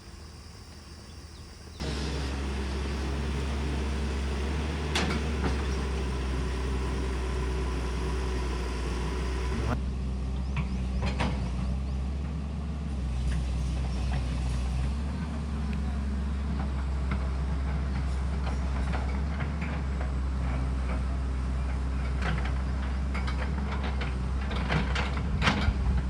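Borewell drilling rig running: a steady heavy engine drone that starts suddenly about two seconds in, with scattered metallic knocks and clatter, thickest near the end.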